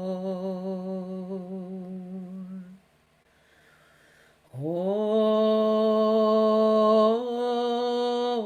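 A voice toning long, slow sustained notes in its low range: a held note with a slight waver fades out, a short pause follows, then a new note slides up from below and holds, stepping a little higher near the end.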